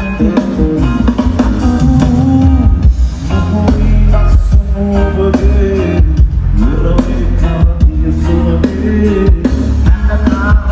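Live band music at a sound check: a singer's melody over guitar and drum kit, with a heavy low end.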